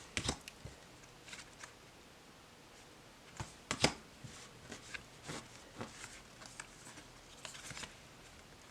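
Tarot cards being handled and laid down one at a time: scattered soft taps and brief rustles of card on card, the sharpest about four seconds in.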